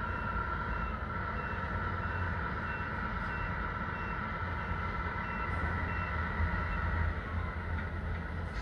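1/14-scale Tamiya RC truck backing up: its reversing beeper gives about two short high beeps a second, stopping about seven seconds in, over a steady simulated engine hum with a low rumble.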